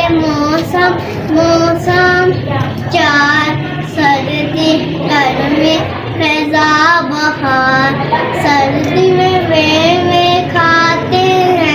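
A child singing a melody, with a steady musical accompaniment underneath.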